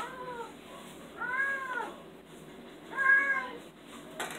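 Domestic cat meowing three times, each meow rising then falling in pitch, the third the loudest. Two sharp clicks, one at the start and one near the end.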